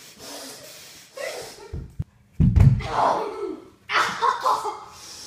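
Dull thumps and bumps, the loudest about two and a half seconds in, just after a moment of dead silence, with some faint breathy voice sounds.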